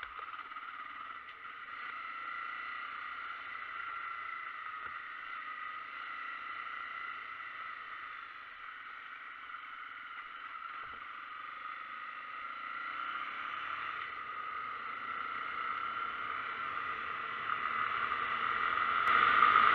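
Steady running noise of a moving vehicle, growing louder over the last several seconds.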